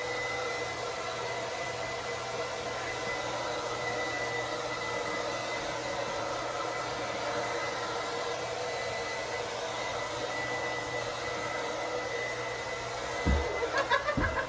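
Handheld hair dryer running steadily, an even rush of air with a constant whine. Near the end there are a couple of dull thumps.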